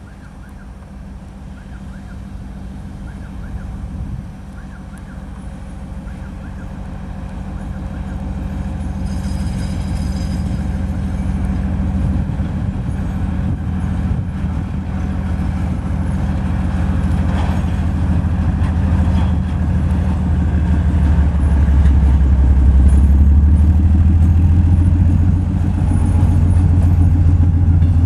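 Soviet-built M62 diesel locomotive's two-stroke V12 diesel engine running as it hauls a freight train of hopper wagons in. Its low, steady drone grows louder as the locomotive draws near and passes.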